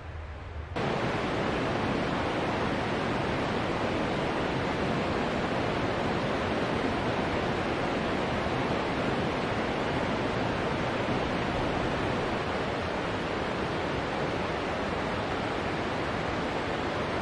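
Steady rush of a mountain creek's flowing water, a dense even hiss that cuts in abruptly about a second in.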